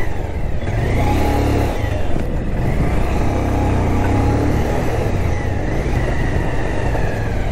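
Motorcycle running along the road, its engine and wind noise making a steady low rumble, with a faint whine that rises and falls every couple of seconds.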